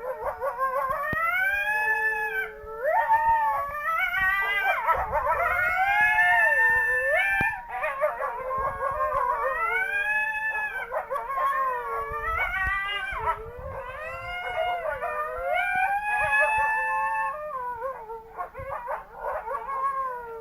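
Howling from several canine voices at once, long wavering howls that rise and fall in pitch and overlap one another, easing off near the end.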